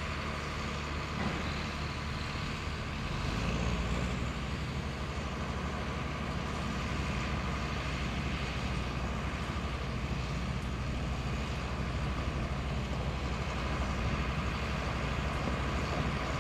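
Large John Deere four-wheel-drive tractor's diesel engine running steadily as it pulls a heavy Balzer 12000 liquid manure tanker along a gravel road, with tyres crunching over the gravel and a steady high whine over the engine. It gets louder about three seconds in as the rig comes closer.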